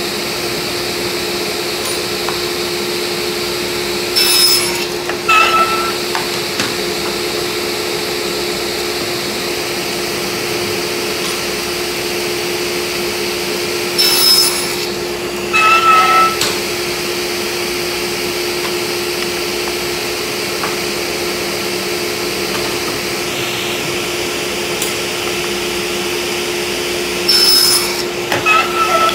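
Table saw running steadily while it cuts a row of kerfs partway through a plywood strip so the strip can bend. Three cuts are heard, each as two short, louder bursts of the blade biting the wood, about ten seconds apart, over the machine's steady hum.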